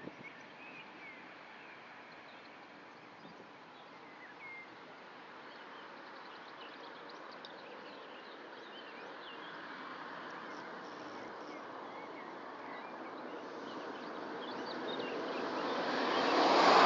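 Faint outdoor background with a few short, thin bird calls near the start and about four seconds in. A broad rushing noise of a passing vehicle then swells over the last few seconds and is loudest at the very end.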